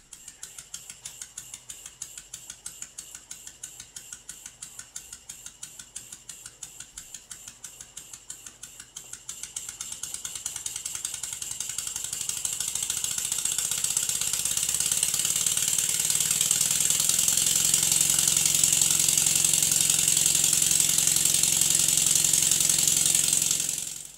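Stuart S50 model mill engine running on compressed air: its exhaust puffs come a few times a second, then speed up as the engine gathers speed until they merge into a steady, louder hiss. The sound cuts off suddenly near the end.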